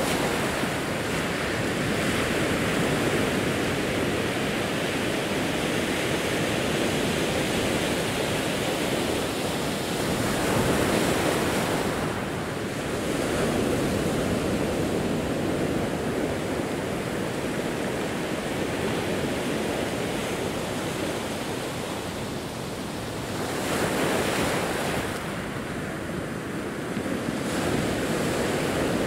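Ocean waves washing onto a rocky, pebbly shore, a continuous rush of surf that swells and eases every few seconds.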